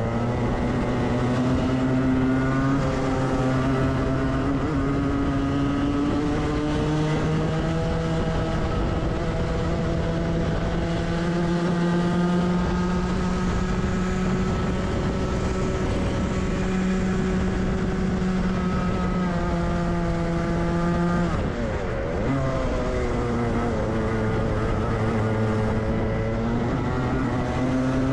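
Rotax 125 cc two-stroke kart engine heard onboard at full throttle, its pitch climbing steadily along a long straight. About 21 seconds in the pitch drops sharply as the driver lifts off for a corner, then it climbs again as the kart accelerates out.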